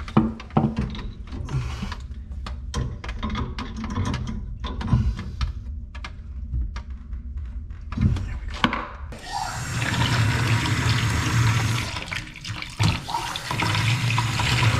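Metal clicks and knocks of an adjustable wrench on a leaking compression fitting at a sink supply valve as it is tightened. About nine seconds in, the bathroom faucet starts running steadily into a plastic bucket, purging the newly connected supply lines.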